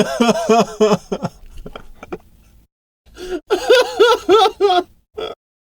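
Two separate human laugh sound effects: a laugh of quick rhythmic "ha" pulses, about five a second, that trails off, then after a short silence a second, higher-pitched laugh that stops abruptly.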